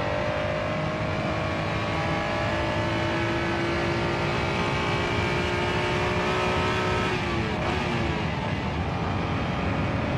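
Honda NSX-R's 3.0-litre V6 running at high revs under hard acceleration, heard from inside the cabin, its pitch climbing slowly. About seven seconds in, the note falls away sharply and breaks up, and the engine then runs on rougher and noisier.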